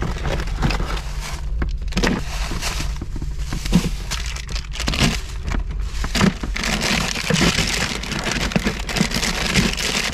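Bagged ice being handled, cubes crunching and rattling in the plastic bag with irregular knocks and crackles, over a steady low hum.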